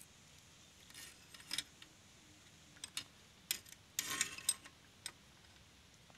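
Light metallic clinks and rattles of metal tools or small metal parts being handled, in a few scattered strikes with a quick cluster of them past the middle.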